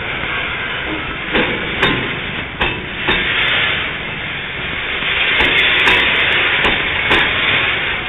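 Freight train moving on the track: a steady rushing noise with scattered sharp clanks and knocks, growing louder in the second half.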